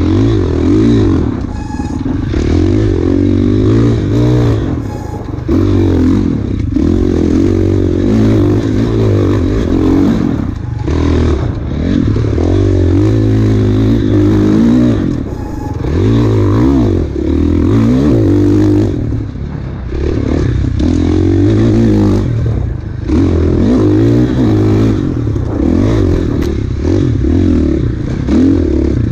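KTM enduro dirt bike's engine revving hard and easing off over and over, with a throttle chop every two or three seconds, mixed with clatter and scraping from the bike over rough ground.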